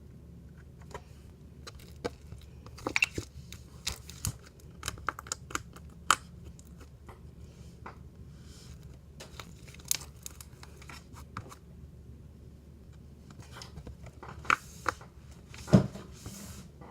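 Slime that is not butter slime being spread and pressed by hand, giving irregular sharp clicks and pops from trapped air, with the loudest pop near the end.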